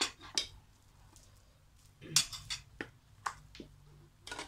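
A metal spoon and fork clinking and scraping against the inside of a stainless-steel electric cooking pot, about eight short, sharp clinks at uneven intervals, most of them in the second half.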